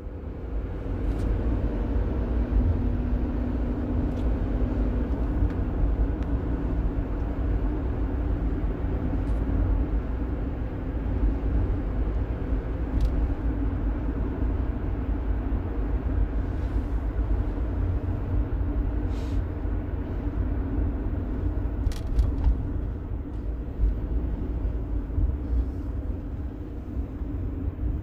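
Road and engine noise heard from inside a moving shuttle van's cabin: a steady low rumble with a faint hum, and a few faint ticks.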